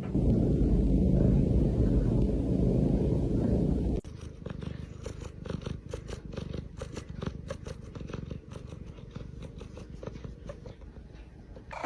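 Domestic cat purring: a loud, steady low rumble at first, then, after an abrupt change about four seconds in, a quieter stretch with many irregular soft clicks.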